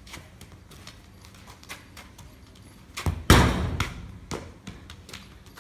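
A heavy thud about three seconds in, the loudest sound, among scattered light knocks and clicks.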